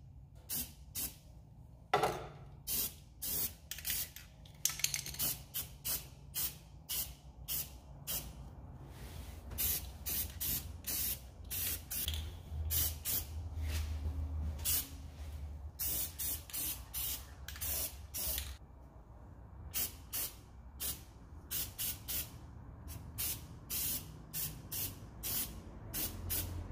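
Aerosol spray-paint can spraying gloss black enamel in many short hissing bursts, about one or two a second, with a few brief pauses; the loudest burst comes about two seconds in.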